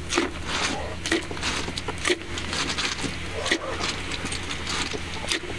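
Clay cooking pot of water steaming over a wood fire, with irregular pops and crackles through the whole stretch.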